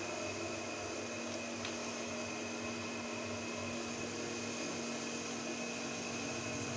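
Steady mechanical hum with a faint high whine, unchanging throughout.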